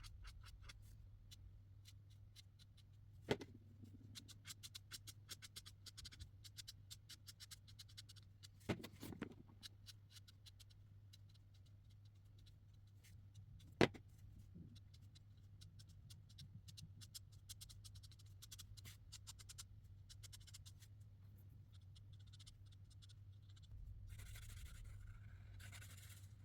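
Marker tips faint on paper in many quick, short strokes, with three sharper clicks spread through and a longer scratchy stroke near the end.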